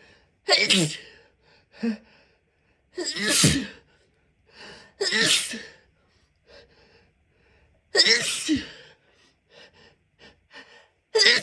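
A person sneezing over and over in mostly stifled sneezes: four sharp sneezes a couple of seconds apart, with a fifth just starting at the end and small breaths between them.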